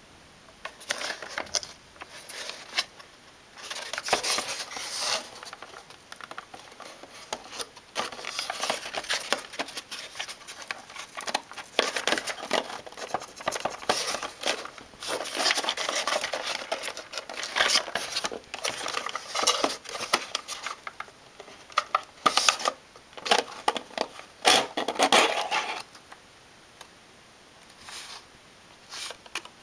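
Hands handling PC hardware and its packaging: irregular rustling, scraping and sharp clicks that stop a few seconds before the end.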